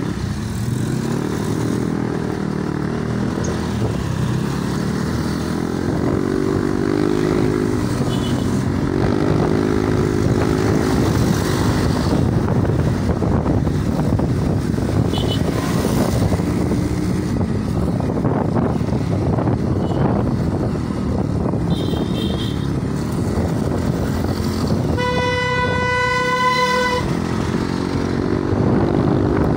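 Motorcycle engine running as it rides along a road, its pitch rising and levelling off again and again as it speeds up and shifts, with road noise. A vehicle horn sounds one steady blast of about two seconds near the end.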